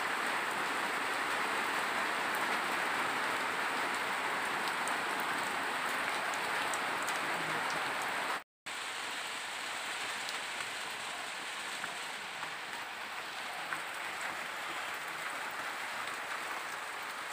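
Steady rain falling: an even hiss with scattered small drop ticks. It cuts out for a moment about eight seconds in, then resumes slightly quieter.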